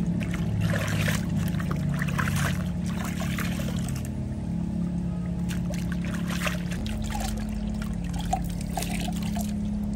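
Water splashing and dripping in a plastic basin as small clothes are hand-washed and wrung out, in two spells of short splashes.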